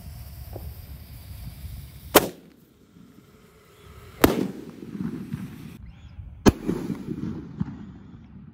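A large 1.9-inch Roman candle firing, with three sharp bangs about two seconds apart, each followed by a short echo.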